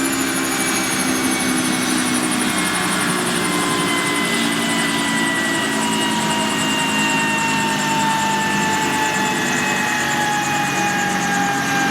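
Twin-turbine AS365 Dauphin rescue helicopter running on the helipad: steady turbine whine with a fast rotor beat, the whine falling slowly in pitch throughout.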